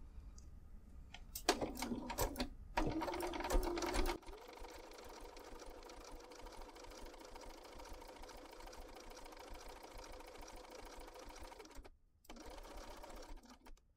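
A BERNINA B475 electronic sewing machine sewing a decorative back-and-forth stitch. It runs louder for a couple of seconds early on, then settles to a steady run with a constant hum. It stops briefly about twelve seconds in, then starts again.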